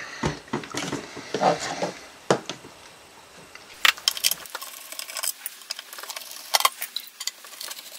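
Screwdriver working the small brass screws out of a metal instrument case, with light metallic clicks and taps as tool and screws touch the case. A few scattered knocks from the box being handled come first, and the clicking grows denser from about four seconds in.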